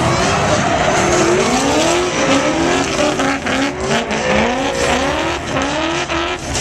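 Two drift cars sliding in tandem. Their engines rev up again and again at high revs while the tyres squeal.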